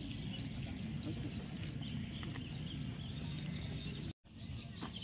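Faint outdoor ambience: a steady low background hum with faint bird chirps. The sound cuts out for a moment about four seconds in.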